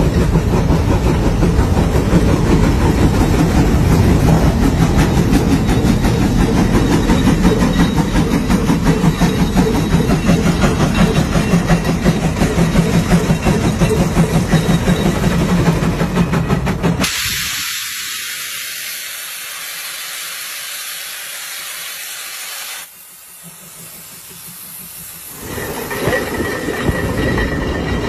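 Coal-fired steam traction engine running under load while pulling plows, its sound dense with a fast, even pulsing beat. About seventeen seconds in it switches abruptly to a steady hiss of steam for several seconds, then the running sound comes back near the end.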